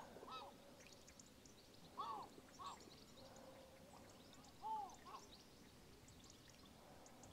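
A few short bird calls, each rising and falling in pitch and mostly coming in pairs, against near silence.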